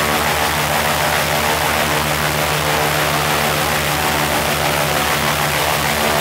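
Ilyushin Il-14's Shvetsov ASh-82T 14-cylinder radial engine running steadily with its propeller turning. A constant drone over a fast, even low throb.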